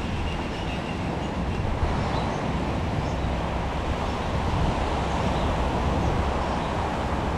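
Steady low outdoor rumble, swelling slightly in the second half.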